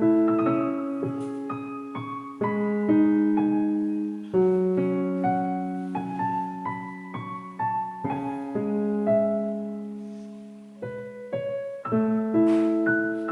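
Background music: a slow, gentle solo instrumental of single notes and chords that start sharply and ring out as they fade.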